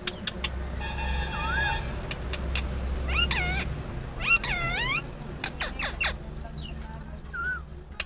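Indian ringneck parakeet calling: a buzzy call about a second in, then two drawn-out calls that dip and rise in pitch, and a few sharp short calls near the end. A low steady rumble runs underneath.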